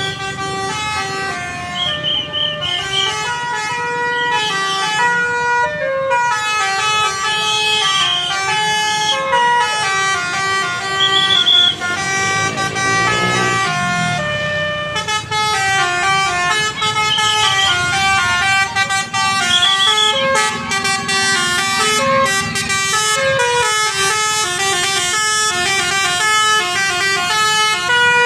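Bus 'telolet' musical air horn of the Basuri type playing a tune: loud horn notes stepping from pitch to pitch, with a sliding sweep of pitch about halfway through and a low rumble underneath.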